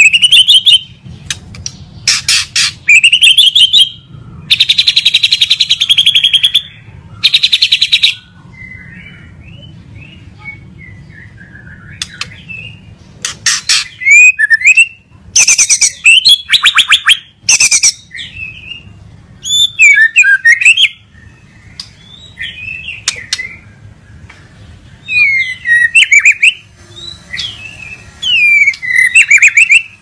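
White-rumped shama singing a loud, varied song: bursts of very fast rattling trills in the first half, then clear whistled phrases that sweep up and down in pitch.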